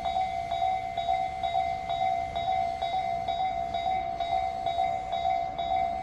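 Japanese level-crossing warning bell ringing steadily, about two strokes a second, over the low rumble of a slow-moving electric train.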